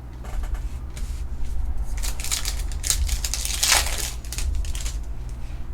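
Trading-card pack being torn open and its cards handled: several short crinkling, scratchy bursts of wrapper and card stock, over a steady low hum.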